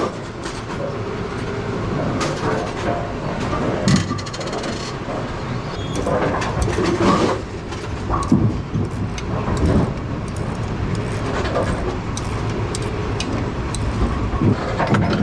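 Steady rumble of running machinery in a bowling-alley pinsetter area, with scattered metal clinks and rattles of hand tools working on the pinsetter, including a short metallic ring about four seconds in.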